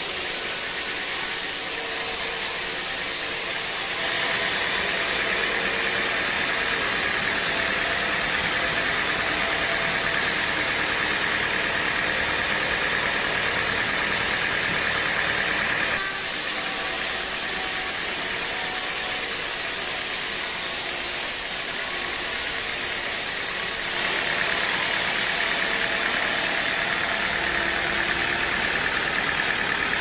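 Homemade band sawmill running steadily, its blade ripping lengthwise through a board of dry teak. The sound steps abruptly brighter and duller a few times.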